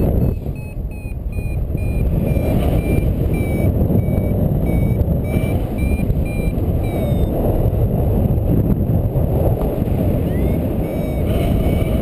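Paragliding variometer beeping in short, high tones a few times a second, the pitch stepping up and down as the glider climbs, with a pause for a few seconds past the middle. Wind rushes heavily on the microphone underneath.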